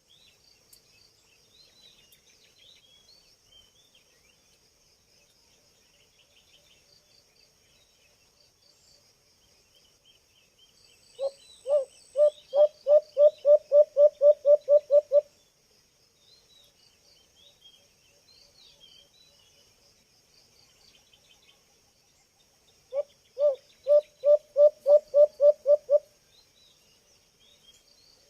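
Young white-eared brown dove calling: two bouts of about a dozen low hooting notes, each opening with a couple of spaced notes and then running quickly, one about eleven seconds in and one near the end. Under them are a steady high insect drone and faint chirps of other birds.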